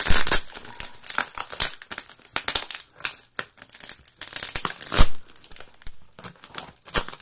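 Plastic packing tape being peeled and ripped off a heavily taped cardboard box, crackling and tearing in irregular pulls, with the loudest rip about five seconds in. In the second half, scissors cut into the tape.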